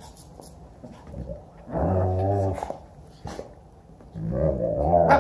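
Two dogs growling in play: a growl about two seconds in that lasts about a second, a brief sharp sound after it, and a second growl starting near the end.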